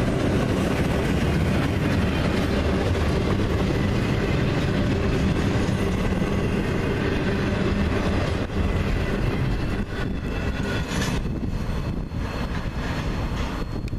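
Double-stack intermodal freight train's container well cars rolling past close by: a steady rumble of steel wheels on the rails with clickety-clack, dropping a little in level about ten seconds in.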